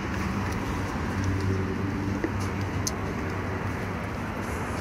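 Steady low outdoor background rumble, with a few short sharp clicks about two and three seconds in as an orange box cutter works at the taped flap of a cardboard shipping box.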